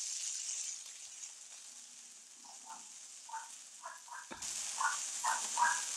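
Ribeye steak searing in a hot oiled pan: fat and oil sizzling with short crackling pops. The sizzle fades for a few seconds, then comes back suddenly about four and a half seconds in.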